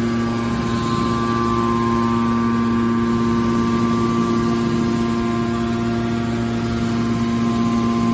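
Hydraulic car baler's power unit running, a steady machine hum that holds one pitch throughout.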